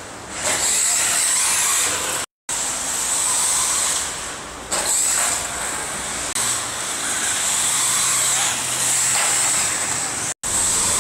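Electric RC cars running on a dirt track: a steady, loud hiss of motors and tyres, cut off for a moment twice.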